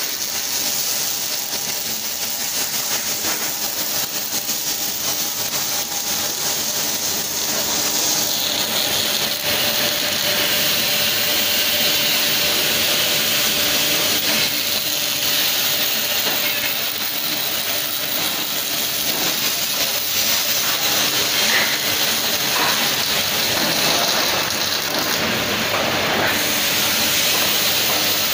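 Automated gantry welding of steel deck plates: steady welding-arc hiss with a faint machine hum underneath.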